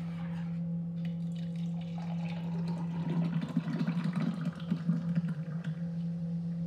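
Thick milkshake poured from a steel vessel into a glass, with a splashing pour about halfway in. A steady low hum runs underneath throughout.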